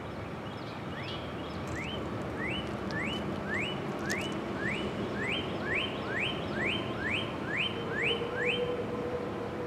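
A bird singing a steady series of about fifteen quick rising whistled notes, roughly two a second, over steady low background noise.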